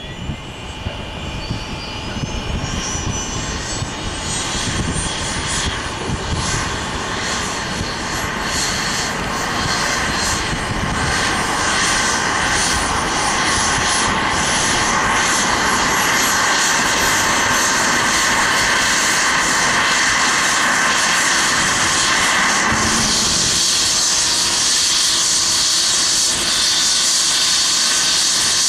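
Bell 429 helicopter's twin turboshaft engines and main rotor running up on the pad. A thin turbine whine climbs steadily in pitch while the sound grows louder over the first dozen seconds or so, then holds steady and loud as the rotor reaches speed.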